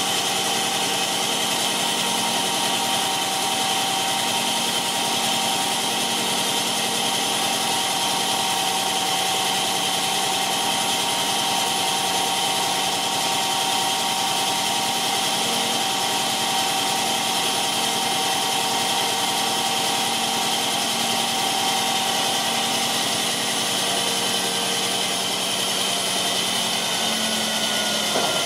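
Hydraulic system of a Mack CXN613 hook-lift truck running steadily, pump whine over the engine, while the hook-lift arm lowers to its stowed position. The tone stays even throughout, with a brief shift near the end as the arm comes down onto the chassis.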